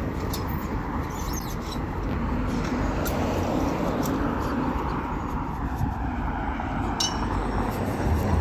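City street ambience: a steady low rumble of traffic with a few faint scattered clicks.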